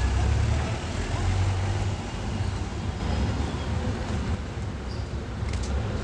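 Steady low rumble of a vehicle's engine and road noise, heard from inside the moving vehicle, with city street traffic around it.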